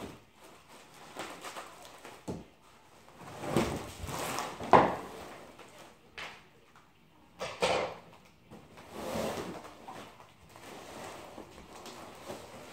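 Bubble wrap and plastic sheeting rustling and a long cardboard box scraping and knocking as a bubble-wrapped rear diffuser is unpacked and pulled out. The sounds come in irregular bursts, the loudest about five seconds in.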